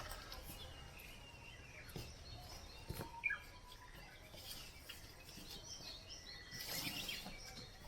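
Faint bird chirps from small songbirds, with two light knocks and a brief rustle near the end.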